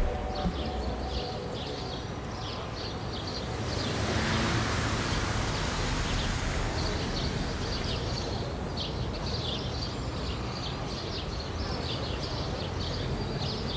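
City street ambience: small birds chirping over and over above a steady low traffic rumble, with a swell of passing-traffic noise about four seconds in.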